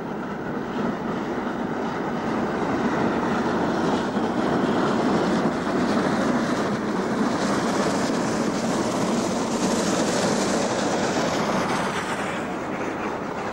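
GWR King class four-cylinder 4-6-0 steam locomotive 6024 King Edward I passing with its train: a steady rumble of exhaust and wheels on rail. It swells over the first few seconds, holds, then eases off near the end as the train goes by.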